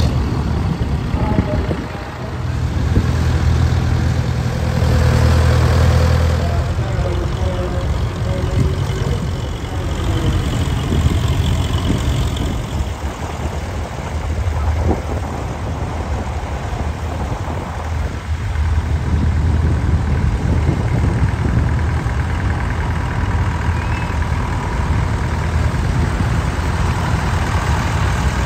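Vintage farm tractor engines, among them a David Brown and a grey Ferguson, running slowly at low revs as the tractors drive past one after another. The low engine note is steady, swelling a little as each tractor comes close.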